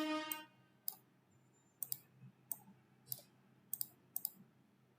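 Computer mouse clicking: about ten short, sharp clicks, some as quick double-clicks, spaced irregularly. A brief steady hummed tone sounds at the very start.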